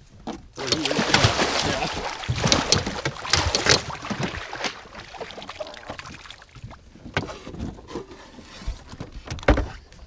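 A muskie thrashing in a landing net at the water's surface, splashing hard for about three seconds, then quieter sloshing with a few sharp knocks near the end.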